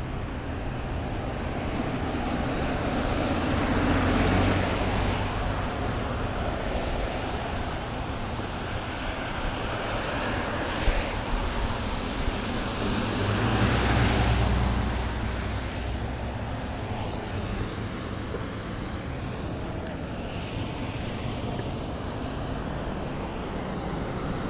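Vehicles passing on a wet street, tyres hissing on the wet road over engine noise. The sound swells as one goes by about four seconds in, and again, louder and deeper, around fourteen seconds, with a brief sharp tap near eleven seconds.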